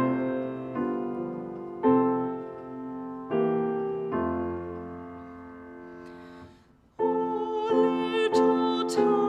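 Solo piano playing slow chords, each struck and left to ring and fade. A long held chord dies away about six and a half seconds in, and after a brief pause a new passage begins with firmer, quicker chords.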